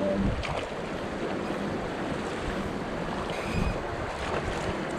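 Steady rush of river water on a whitewater float trip, with wind buffeting the microphone now and then.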